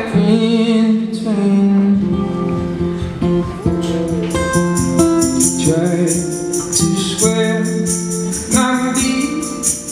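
Live acoustic band music: a male voice singing long held notes over strummed acoustic guitars. A steady, quick high percussion tick joins about halfway through.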